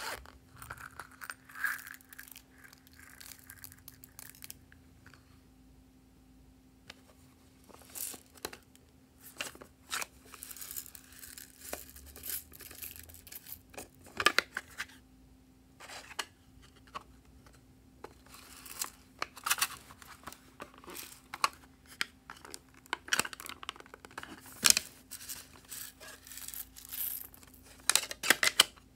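Small plastic toy cases handled over a glass bowl and sequins shaken out into slime: irregular plastic clicks, taps and crinkly rustling, over a faint steady hum.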